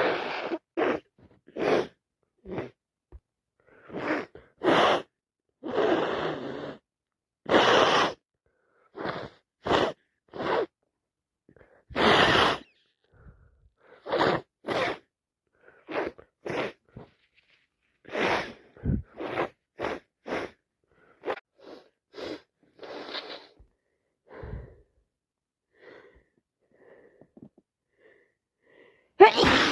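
A woman sneezing over and over from a head cold, with short breaths between the sneezes. The bursts come thick and loud at first and thin out to faint ones in the last few seconds, then one more loud sneeze right at the end.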